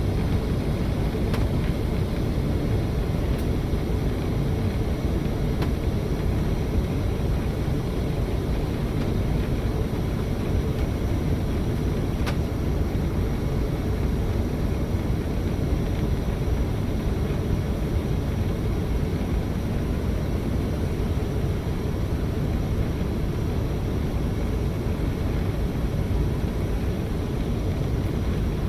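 Steady cabin noise of an Embraer ERJ-140 regional jet in flight on approach: a low rumble of airflow and its two rear-mounted turbofan engines, even throughout, with a faint steady tone above it.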